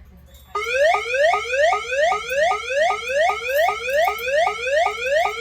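Fire alarm voice-evacuation speakers sounding a tornado alert tone: a fast, loud, repeating rising whoop, about three sweeps a second, starting about half a second in.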